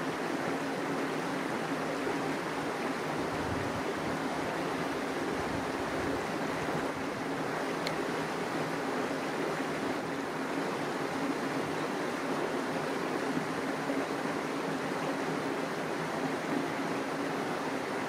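Steady outdoor rushing noise, even and unbroken, with no bird calls.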